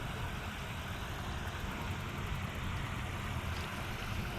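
Steady low outdoor rumble with a faint hiss, even throughout, with no distinct events.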